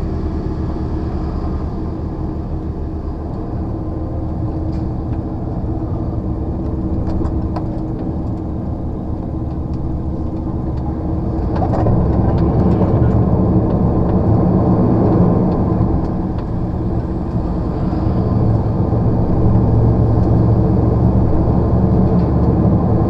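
Lorry's diesel engine running under way, heard from inside the cab with road noise; it grows louder about halfway through as the engine pulls harder.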